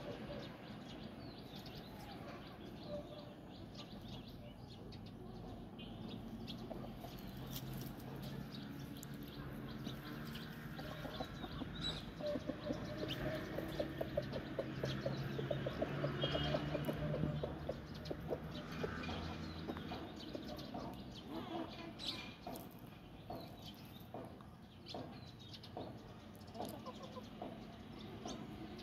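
Rooster and hens clucking, with a stretch of louder, rapid clucking in the middle lasting several seconds.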